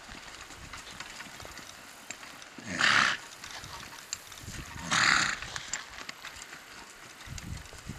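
Miniature horse trotting in harness, giving two loud, breathy half-second blasts about two seconds apart, a little under three and about five seconds in, with light ticking between.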